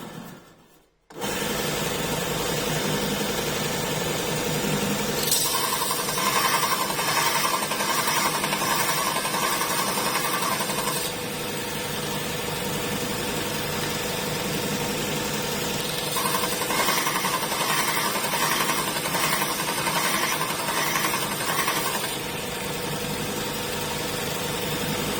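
Robert Sorby ProEdge belt sharpener starting up about a second in and running with a steady hum. Twice, for about six seconds each, a drill bit is held against the abrasive belt to grind its clearance bevel, which adds a rasping hiss over the motor.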